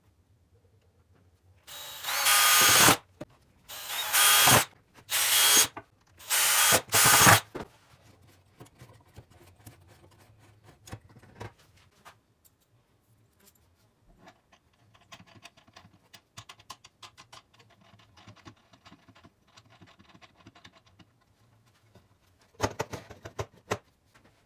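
Power drill run in short bursts of about a second, five in quick succession. Then comes a stretch of quieter clicks and handling, and one more brief burst near the end.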